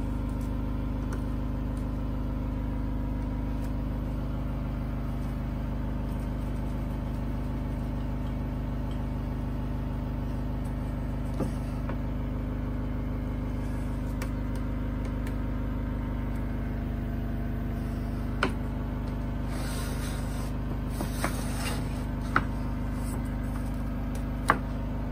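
Steady motor hum with several low stacked tones, holding an even level throughout. A few sharp knocks and clicks come in the second half, along with a short stretch of hiss.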